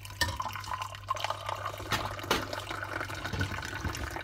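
Tea poured in a thin stream from a raised metal teapot into small tea glasses, splashing as it fills them one after another. Two sharp clicks about two seconds in.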